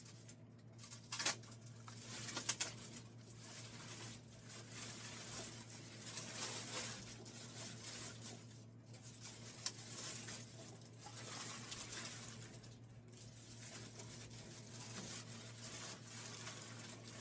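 Rustling and handling of packaging while a 3D printer is unboxed, with a few sharp clicks or knocks, two close together early on and one near the middle.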